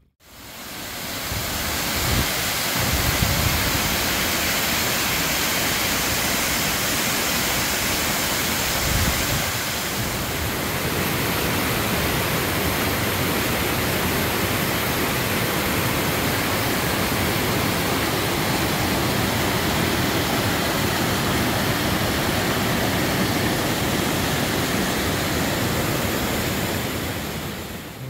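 Moss Force waterfall in spate: a steady rush of falling water, with wind buffeting the microphone a few times in the first ten seconds.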